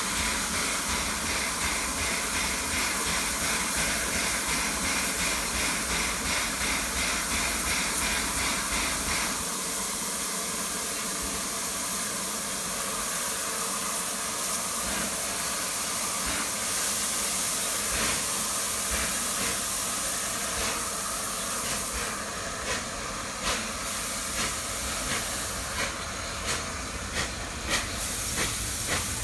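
Steam locomotive Clan Line, a Southern Railway Merchant Navy class Pacific, hissing steam steadily at close range. A regular pulsing runs through the hiss for the first third. From about three-quarters of the way in come sharp knocks roughly once a second.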